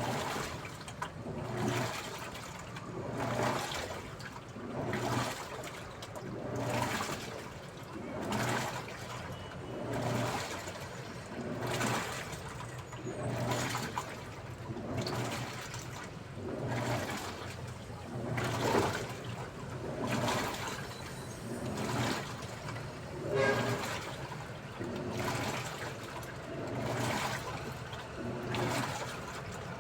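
Daewoo washing machine agitating a load in water: rhythmic sloshing swells about every second and a half to two seconds over a steady low motor hum.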